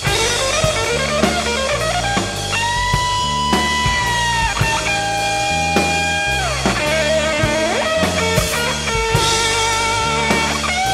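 Instrumental rock passage with no singing: a guitar plays long held notes with slides and wavering vibrato over steady bass and drum kit. The lead line slides upward in the first couple of seconds.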